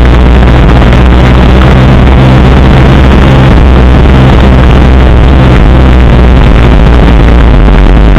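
Motorcycle engine running steadily at road speed, mixed with heavy wind noise on the camera microphone; very loud throughout.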